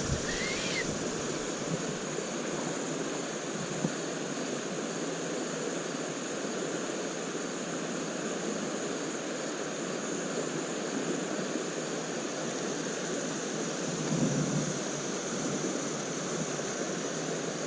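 Creek water running steadily over rocks, an even rushing hiss.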